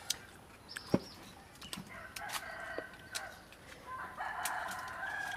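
A rooster crowing twice, the second crow longer and louder, with sharp clicks and taps as star gooseberries are plucked from the branch and dropped into a mortar; the loudest tap comes about a second in.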